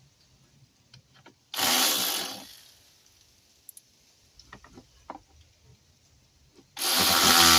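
A cordless power tool spins briefly, about a second, to run down a screw, then again near the end, tightening the next fastener. Light clicks and taps of handling come in between.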